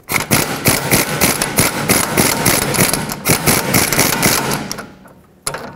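Air impact gun hammering on a rusted 14 mm sway bar link nut, a rapid continuous rattle lasting almost five seconds that stops near the end. The stud is held from behind with locking pliers, and the nut turns only a little.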